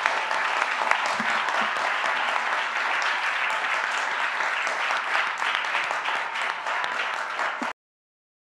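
Audience applauding, a steady mass of many hands clapping, cut off abruptly near the end.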